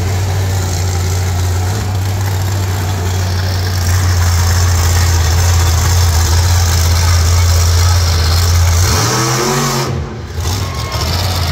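Monster truck engine running hard under throttle. It gets louder about four seconds in, and a rising rev comes near nine seconds, followed by a brief dip in level as the truck pitches up onto two wheels.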